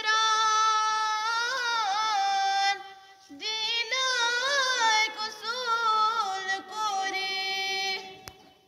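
A schoolgirl singing a nazm, an Urdu poem, solo and unaccompanied, in long held, wavering notes. She breaks off for a breath about three seconds in, then goes on, and the last note fades away near the end.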